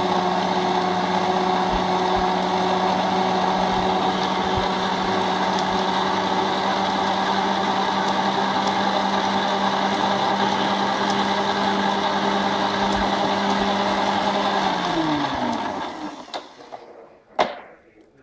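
Bench-top mortar mixer's electric motor running steadily, its paddle churning a bowl of wet mortar. About fifteen seconds in it is switched off and winds down, falling in pitch until it stops. A single sharp knock follows near the end.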